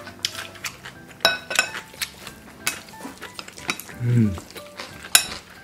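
Chopsticks clicking against glass bowls while sauced noodles are stirred and eaten, with many sharp taps spread through the stretch. A brief low voice-like sound comes just after four seconds in.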